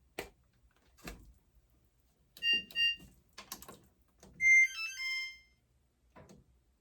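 Button clicks on a GE dryer's electronic control panel, then two short beeps and a brief stepped electronic chime from the panel. The panel is responding as if its control lock is on.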